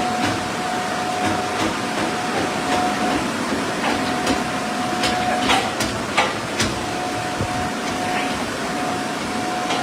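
Steady machine noise with a constant high whine that drops out briefly a few times, and a handful of sharp clanks around the middle.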